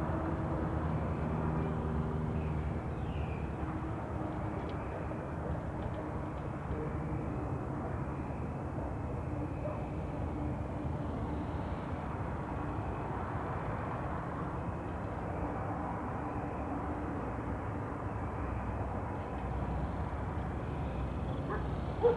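Night ambience: a steady low rumble of distant traffic with a faint hum, and one sharp click near the end.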